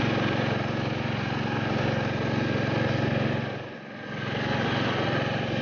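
Riding lawn tractor's engine running steadily as it drives over snow, the sound dipping briefly about four seconds in before coming back the same.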